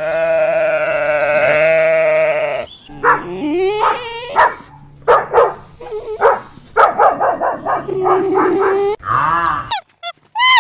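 Animal bleating: one long, loud bleat with a wavering pitch, then a run of shorter bleats and calls.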